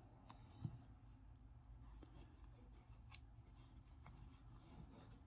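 Near silence with faint, scattered clicks and rustles of a metal crochet hook working bulky yarn. One brief low sound comes less than a second in.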